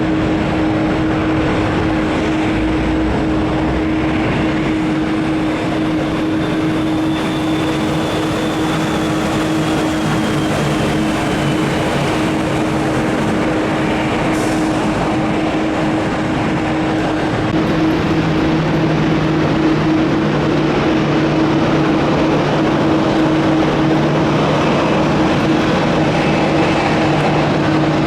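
Jet engines at take-off thrust: steady, loud jet noise with a constant hum running through it. First an Airbus A321neo, then, about 17 seconds in, a Bombardier Global Express 5000 business jet, where the lower tones shift and the sound grows slightly louder.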